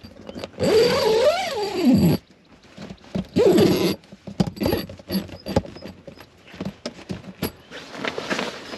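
Rooftop tent zipper being pulled in hard, rasping strokes, its pitch rising and falling with the speed of the pull. The longest pull comes about a second in and lasts over a second, a shorter one follows a couple of seconds later, then smaller scrapes and tugs.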